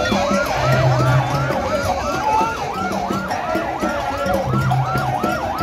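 Vehicle siren sounding a fast yelp, its pitch sweeping up and down about three times a second, over the noise of a large crowd.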